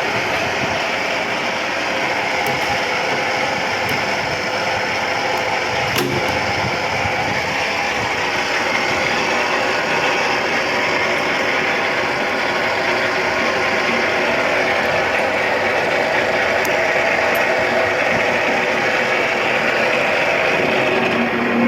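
Electric pipe threading machine running steadily, its motor and gearing turning the die on an iron pipe, with one sharp click about six seconds in.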